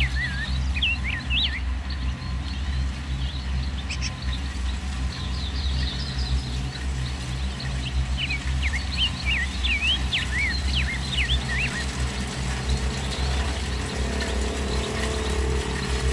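Kubota DC-70 Plus rice combine harvester's diesel engine running steadily, with small birds chirping over it in bursts through much of the time.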